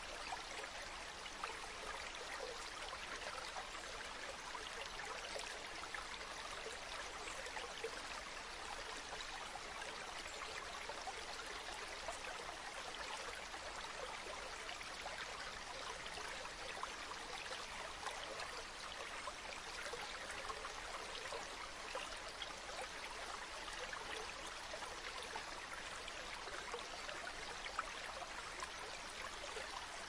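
Small woodland stream trickling and splashing in thin falls over rocks: a steady rushing babble with small irregular splashes.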